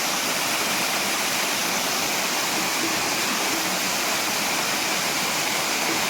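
Steady rush of water pouring down a small waterfall.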